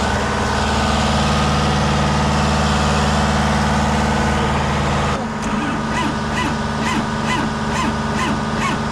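Diesel truck engine idling steadily in the cold. About five seconds in the engine note changes and a rhythmic squeak starts, repeating about twice a second.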